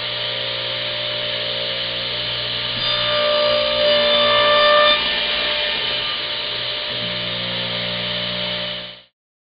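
Radial arm saw running, its blade cutting a 30-degree miter through a wooden board. The sound grows louder with a ringing whine for about two seconds midway through the cut, then settles back to the steady motor hum and cuts off suddenly near the end.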